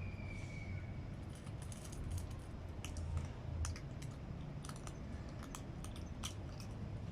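A cat crunching dry food: irregular crisp clicks and crunches. A thin high tone sounds faintly and dies away in the first second.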